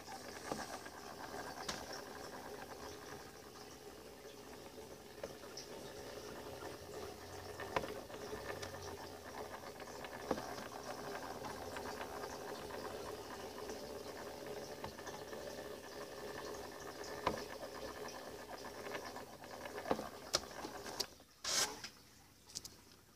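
Faint steady background hum and hiss with a few scattered clicks, and a short louder rustle near the end.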